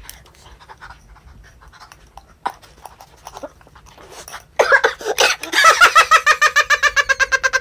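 Faint chewing and small clicks, then about four and a half seconds in a loud high-pitched vocal cry that turns into a fast stuttering, laugh-like run of pulses at a steady pitch, about ten a second.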